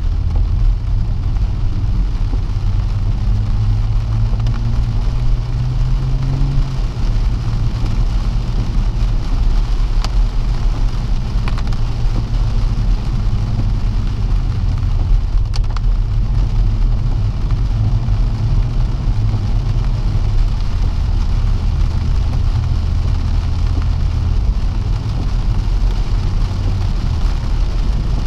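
Inside the cabin of a BMW M140i xDrive: its turbocharged 3.0-litre straight-six drones low under the hiss of tyres on a wet road and rain on the car. The engine note climbs for the first six or seven seconds, then drops.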